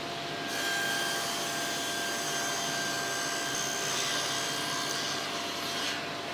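A small electric machine runs with a steady hissing whine, starting about half a second in and stopping near the end.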